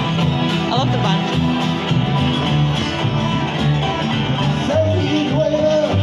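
A live acoustic string band of guitar, double bass and fiddle playing an up-tempo song. The bass notes keep a steady beat under the strummed guitar, with held melody notes near the end.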